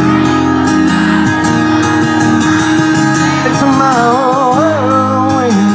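Live country song with acoustic guitar and band, played loud. Singing runs through it, with a long wavering sung line from about three seconds in.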